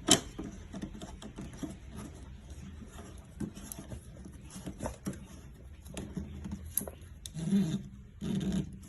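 Handling noise from fitting the hot tub's plastic hose and pump parts together: a sharp knock at the start, then scattered clicks and rubbing, with a couple of duller thumps near the end.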